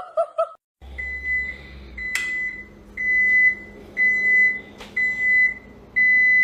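An electronic beeper sounding a steady high beep about once a second, six beeps in a row, with a couple of sharp clicks in between.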